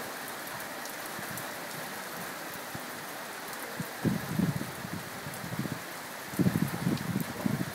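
Steady rain falling on trees and bush, an even hiss. Two short spells of low rumbling noise come through about four and six seconds in, louder than the rain.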